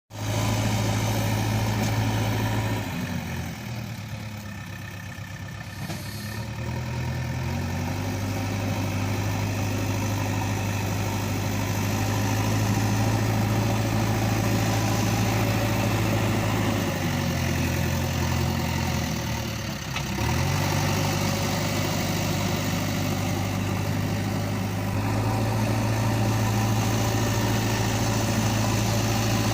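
JCB backhoe engine idling sound: a steady low drone that twice sags in pitch and level, then glides back up to a steady idle.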